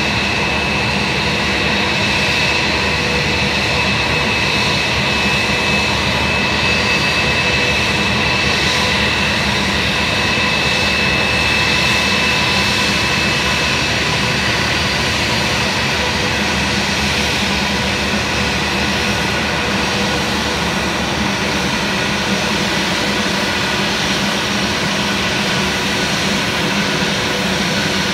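Twin-engine turbofan jet airliner taxiing slowly at low thrust. Its engines give a steady whine with a high whistling tone over a low rumble.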